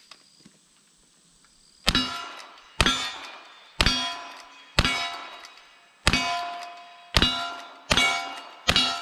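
Eight gunshots in cowboy action shooting, about one a second from about two seconds in, each followed by the clang and ring of a hit steel target.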